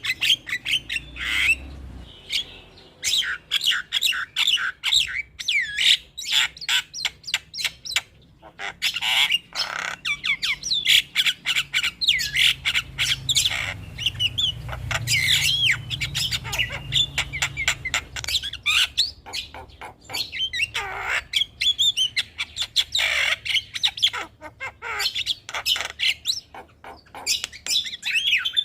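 Javan mynas (jalak kebo) calling in rapid, varied runs of squawks, chirps and whistled glides, a lure recording used to prompt captive mynas to sing.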